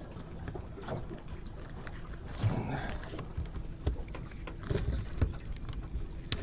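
Scattered light clicks and knocks from a mud crab and gear being handled on a boat deck, over a steady low rumble of wind on the microphone.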